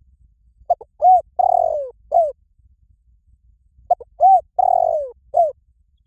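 Spotted dove cooing: two matching phrases a few seconds apart, each of four notes, a short one, an arched one, a longer falling one and a short arched one at the end.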